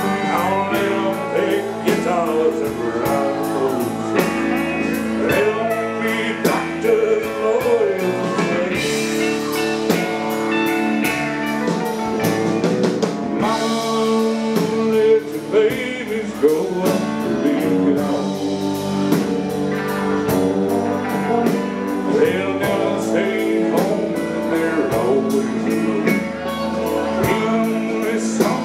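Country-blues band music: electric guitar, drums and a singing voice over a steady beat.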